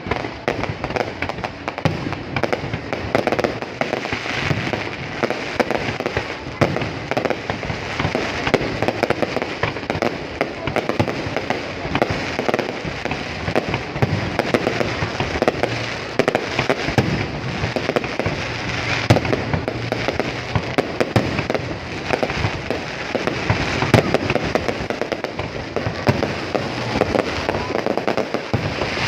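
Fireworks going off in a continuous dense barrage: many overlapping bangs, pops and crackles with no pause.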